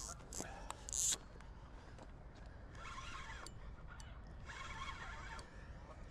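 Fishing reel buzzing and clicking faintly in short bursts as a hooked carp is played and reeled in.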